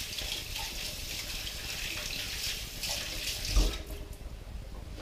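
Kitchen tap running and water splashing into the sink as hands are rinsed under it. The water stops a little under four seconds in, with a knock just before.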